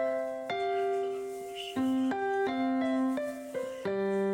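Slow keyboard music, a piano-like melody of held notes changing every half second to a second.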